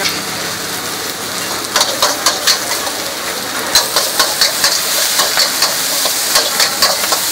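Stir-frying in a wok: food sizzles with a steady hiss, and from about two seconds in a metal ladle scrapes and clanks against the wok in quick repeated strokes.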